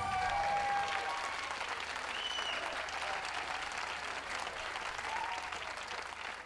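Crowd applauding, the clapping dying away near the end.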